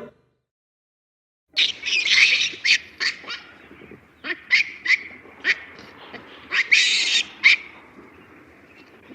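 Birds giving many short, sharp, high calls, some in quick runs and some overlapping, starting about a second and a half in.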